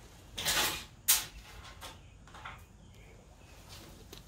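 A metal grease filter being slid into the channel of a stainless steel exhaust hood: a short scrape, then a sharp metal clack about a second in, followed by a few softer knocks.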